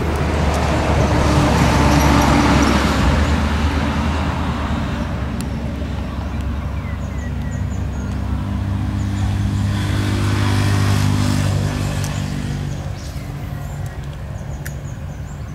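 A motor engine running with a steady low hum, growing louder about two seconds in and again around ten to eleven seconds, then easing off.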